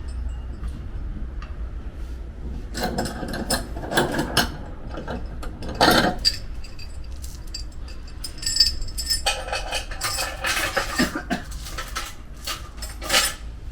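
Irregular metallic clinks, clicks and knocks of body-repair tools working on a car's damaged steel panel, with a louder knock about six seconds in and a longer rasping stretch around ten seconds.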